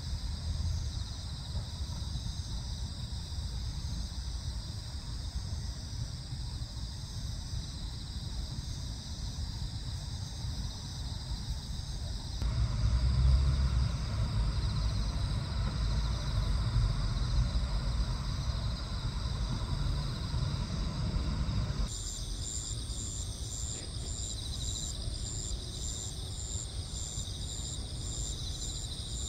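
Crickets and other insects chirping in a steady dawn chorus over a low rumble. The background shifts abruptly about twelve seconds in and again about twenty-two seconds in, after which a high chirp pulses about twice a second.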